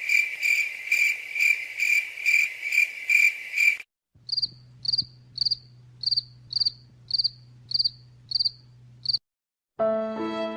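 Cricket chirping sound effects, two clips in a row: first a chirp repeating about twice a second for nearly four seconds, then after a brief gap a higher-pitched chirp, also about twice a second, over a low steady hum for about five seconds.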